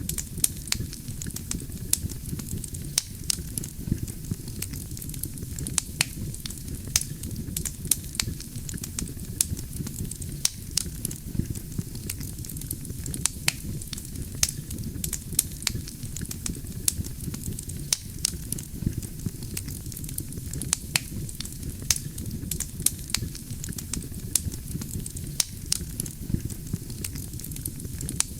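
Wood fire burning: a steady low rumble of flames under frequent sharp crackles and pops of the burning logs, several each second.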